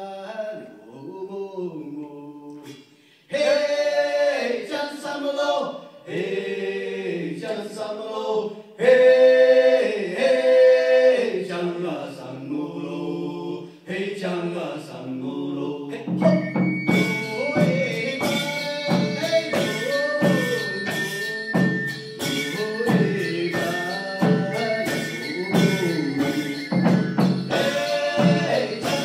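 Several men's voices singing a Chinese folk song, unaccompanied at first. About halfway through, drums and percussion come in with a steady beat under the singing.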